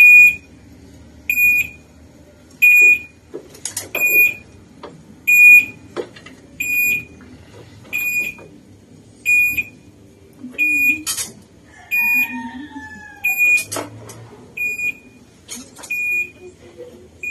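Electric tricycle's warning beeper giving a single high beep about every second and a half while the trike moves slowly, with a few sharp knocks and rattles in between.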